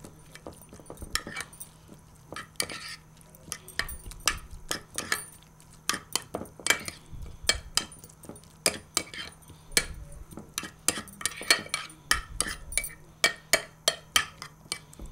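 A spoon stirring tartar sauce in a bowl, clinking and tapping against the bowl in quick irregular strokes. The clinks are sparse at first and come several a second from about halfway through.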